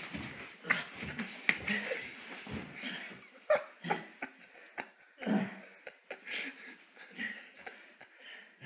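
Two men wrestling on a carpeted floor: heavy strained breathing and grunts, with irregular scuffs and rustles of bodies and clothing against the carpet.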